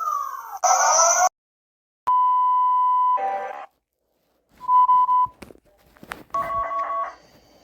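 A run of electronic emergency-alert tones cut together. First a repeating falling sweep ends in a short noisy burst. After a brief gap comes a steady high beep of about a second, then a shorter repeat of it. Near the end, a two-tone alarm starts pulsing rapidly on and off.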